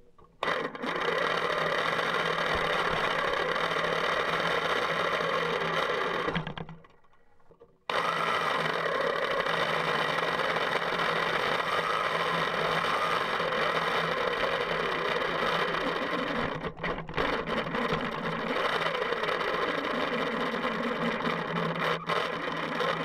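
Small electric drive motor and gears of a Meccano model pickup truck whirring steadily as it drives across the floor. It cuts out about six and a half seconds in and starts again about a second later.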